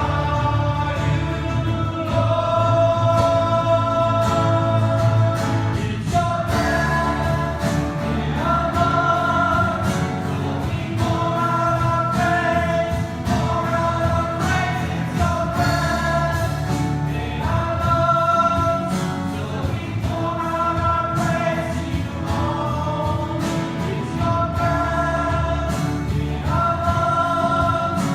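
Worship music: a group of voices singing a slow gospel-style hymn with instrumental accompaniment, long held notes.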